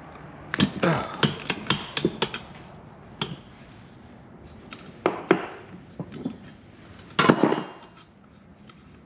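Irregular metal knocks, taps and clinks of a hand wrench working on the table saw's bolts, with a louder metallic clatter about seven seconds in that rings briefly.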